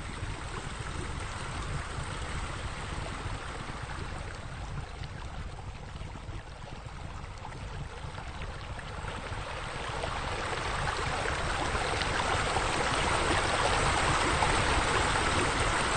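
Water pouring and splashing into a pool from fire-bowl scuppers, a steady rushing that grows louder from about ten seconds in, over a low rumble.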